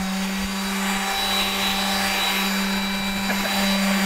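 Electric random orbital sander running with a steady hum while sanding down a boat's hull.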